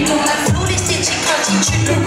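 Live concert music played loud over the venue's sound system, with singers on microphones and deep bass notes that slide down in pitch about once a second.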